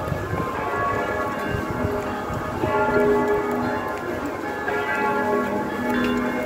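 Church bells ringing from a belfry: several bells of different pitch strike one after another, each note hanging on, heard over low street noise.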